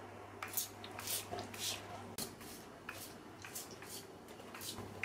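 Trigger spray bottle of fabric sanitiser misting a mattress in repeated short hissing squirts, about two a second, over a low steady hum.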